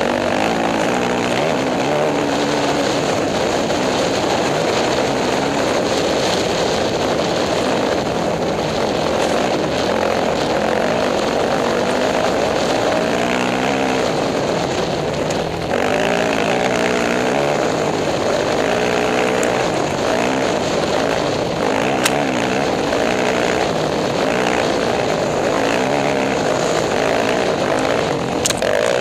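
Off-road racing motorcycle engine revving up and down as the rider shifts and works the throttle at race speed, with wind rushing over the helmet-mounted microphone.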